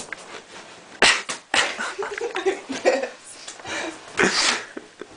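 A play-fight scuffle with beanie babies: several sudden slaps and thumps, mixed with squealing, shrieking voices.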